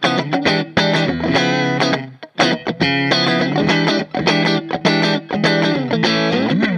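Electric guitar played through an amplifier: a fast lead line of quick picked single notes, with a brief break about a third of the way in and a note bent in pitch near the end.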